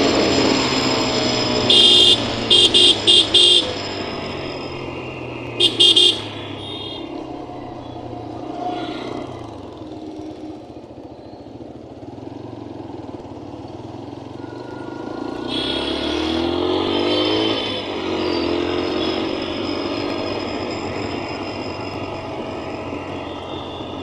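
Motorcycle engine running steadily on the ride through traffic, rising in pitch as it speeds up after about fifteen seconds. Vehicle horns beep in short blasts: four quick ones about two seconds in and two more about six seconds in.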